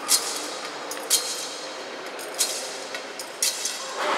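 Short, sharp metallic clicks with a brief ring, roughly once a second, over the steady murmur of a large, echoing church.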